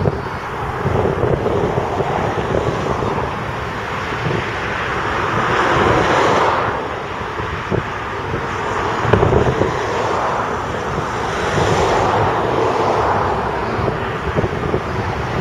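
Diesel engines of earthmoving machinery running: a Volvo articulated dump truck tipping its body beside a Komatsu bulldozer, with other trucks and an excavator working behind. The rumble is steady, swells twice, about six and twelve seconds in, and carries wind noise on the microphone.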